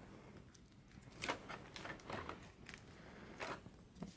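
Several faint, short clicks and light knocks, irregularly spaced, from a hand handling an aluminium carrying case.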